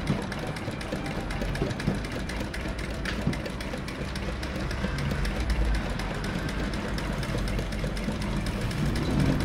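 SunStar sewing machine running steadily while stitching fabric: a motor hum with fast, even clicking from the needle stroke.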